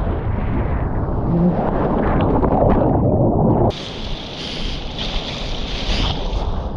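Wind buffeting the microphone and rushing water while riding a hydrofoil board. About three and a half seconds in the heavy low rumble cuts off suddenly and a thinner, higher hiss takes over.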